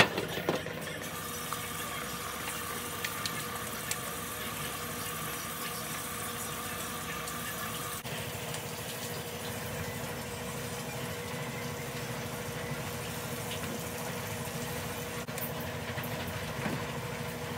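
Steady mechanical hum with a faint steady tone, opening with a sharp click; a second, higher tone cuts off about eight seconds in.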